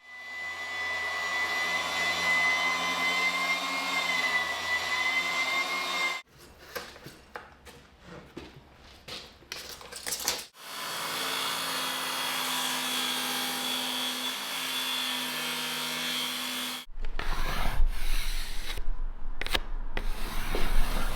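A power saw cutting through wood in two runs of about six seconds each, one at the start and one beginning about ten seconds in, each with a thin steady whine over the cutting noise. Knocks and clatter of boards being handled come between and after the cuts.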